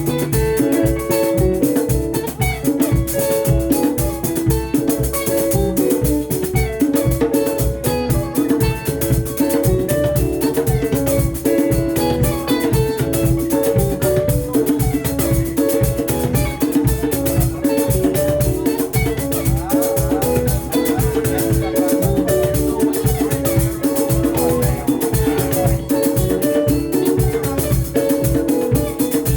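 Live band playing an instrumental passage of a Swahili rumba song: bright interlocking guitar lines of fast picked notes over bass and an even, driving drum beat.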